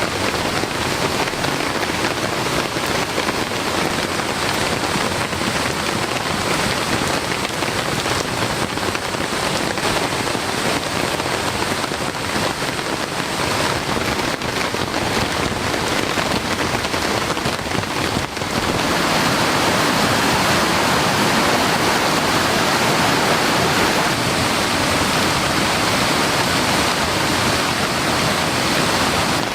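Heavy rain pouring down in a dense, steady hiss, which becomes louder about two-thirds of the way through.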